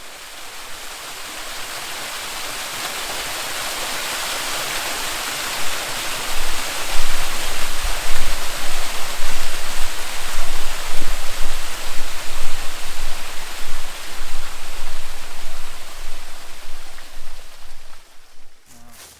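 Rushing water of a waterfall or creek cascade: a steady, dense hiss that swells in and grows louder, turning uneven with low surges from about six seconds in, then cuts off abruptly near the end.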